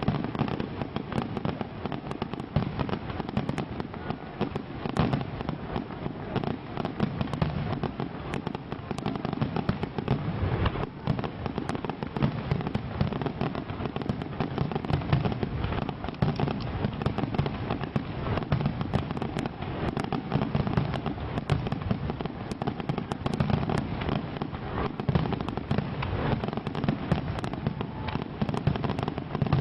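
Fireworks going off in a dense, unbroken barrage of bangs and crackling, with no lull.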